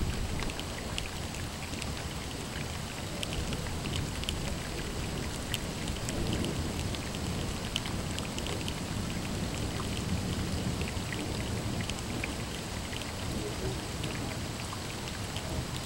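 Steady rain, with many individual drops ticking close by. Under it a low rumble of distant thunder, strongest in the first second, fades and returns faintly now and then.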